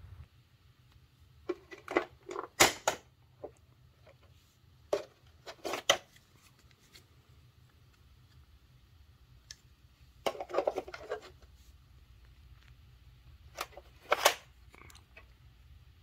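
Hard plastic accessory tools of a Hoover WindTunnel upright vacuum clicking and clattering as they are handled on the machine, in four short bursts of clicks.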